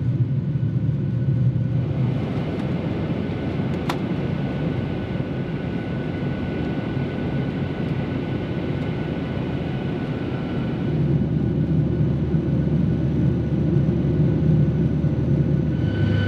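Steady jet engine and airflow noise inside the cabin of a Boeing 737 airliner in flight, a low rumble whose tone shifts about two seconds in and again about eleven seconds in. A single short click about four seconds in.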